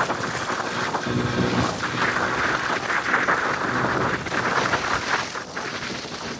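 Motorcycle running at riding speed, its engine hum under a steady rush of wind over the microphone and road noise, growing quieter near the end.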